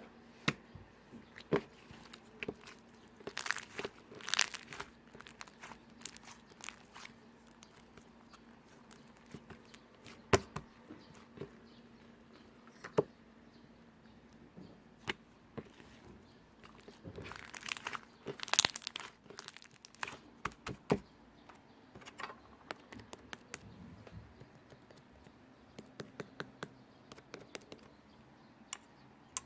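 Slime being squeezed and poked by hand, giving scattered small clicks and popping crackles, with a busier run of crackles about two-thirds of the way through.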